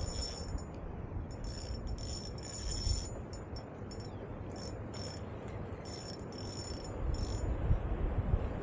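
Wind buffeting an action camera's microphone, a low uneven rumble that grows stronger near the end. A faint high whine cuts in and out repeatedly over it.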